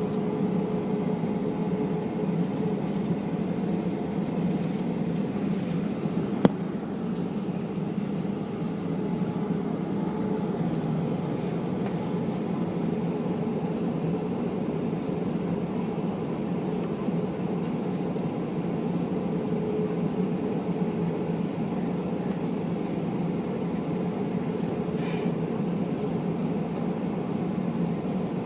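Steady cabin drone of a Boeing 737-800 with its CFM56 engines running, heard from inside the cabin as an even rush with a low, steady hum in it. A single sharp click about six and a half seconds in.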